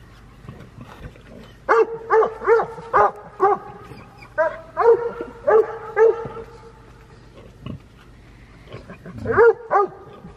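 An animal giving short, pitched calls in three quick runs: about five in a row, then about five more, then three near the end.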